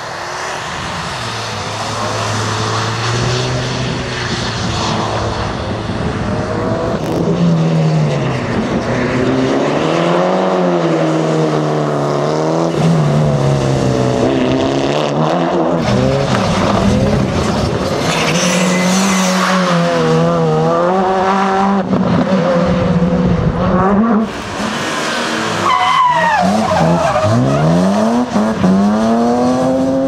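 Rally cars' four-cylinder engines revving up and down over and over as they are slid through corners, first a Mitsubishi Lancer Evolution, then a Škoda Fabia rally car.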